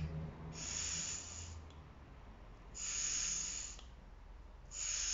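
Three long puffs of breath, each about a second and about two seconds apart, blown into the fuel inlet of a Keihin 26/30 DC carburettor. The blowing tests whether the new float needle valve shuts off the fuel supply with the float raised.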